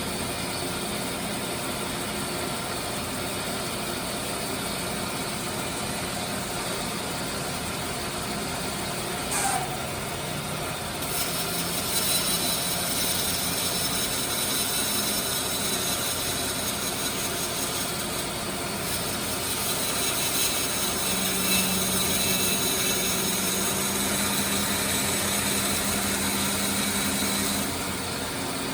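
Band saw motor and blade running steadily. About a third of the way in the sound turns louder and hissier as the blade bites into the wood.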